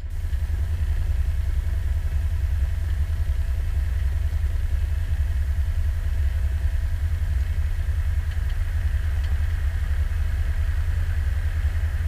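Cessna 172's piston engine and propeller running steadily, heard from inside the cabin: a deep, even drone with a faint steady hum above it.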